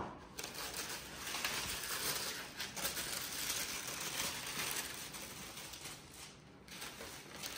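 Tissue paper inside a sneaker box rustling and crinkling as it is unfolded and pushed aside by hand, easing off near the end.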